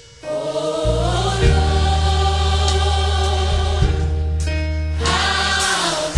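Gospel choir singing over instrumental backing with a deep, steady bass line, coming in just after the start and briefly dropping out near the end.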